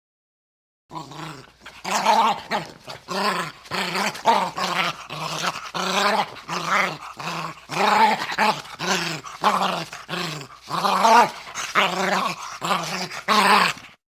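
Bull terrier growling in a long unbroken series of short rasping growls, about two a second. The growling starts about a second in and stops just before the end.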